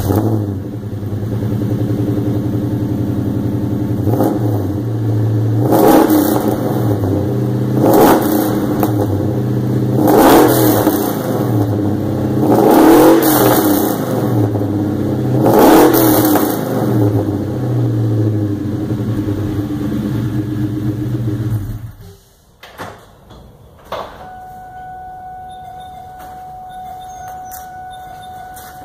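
Ford Coyote 5.0 DOHC V8, just started, idling through shorty headers, a Bassani X-pipe and a Magnaflow cat-back exhaust. It is revved and let fall back five times, then shut off about 22 seconds in.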